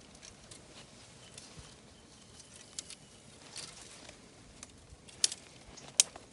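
Footsteps through dry grass and brush: scattered crackles of dry stems, with two sharper snaps about five and six seconds in.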